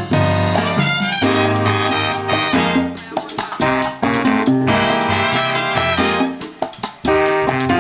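Live salsa band playing an instrumental passage with no singing: a horn section in accented phrases over piano and Latin percussion, with short breaks about three and seven seconds in.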